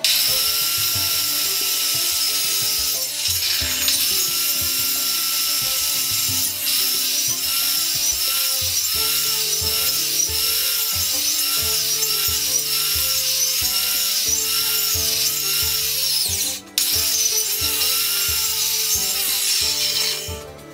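Corded circular saw running and cutting into a wooden post, its whine dipping and recovering over and over as the blade bites. It stops briefly near the end, then runs again.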